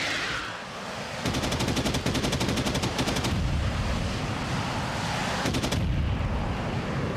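A jet's rush fades, then about a second in a fighter's cannon fires a rapid burst of about two seconds, followed by a low rumble and a second short burst near the end.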